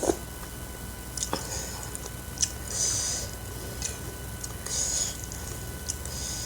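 Close-up eating sounds: a person chewing with scattered small mouth clicks, and three brief hissing sounds about two seconds apart.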